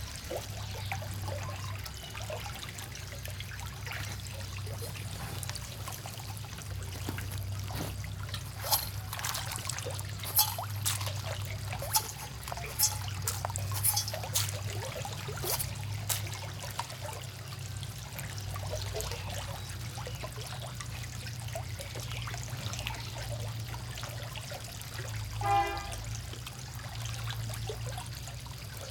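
Water trickling and pouring into a shallow pond crowded with frogs, over a steady low hum. A run of sharp clicks and splashes comes in the middle, and a brief pitched call sounds near the end.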